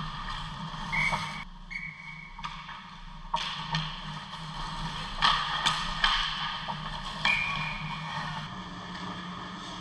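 Ice hockey play at the rink: skates scraping the ice and sticks and puck clacking, with a few sharp clacks about five to six seconds in. A brief high steady tone sounds twice about a second in and once more about seven seconds in.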